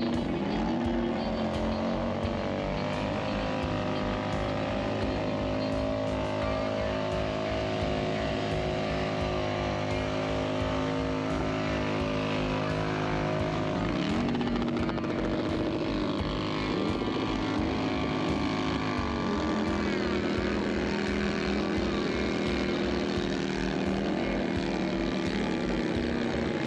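Motorcycle engines running with a steady, regular low throb, revved up and down several times in the second half.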